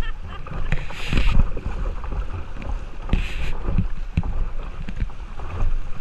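Choppy river water rushing and slapping against a kayak hull, with wind buffeting the microphone. Two short splashy hisses about one second and three seconds in.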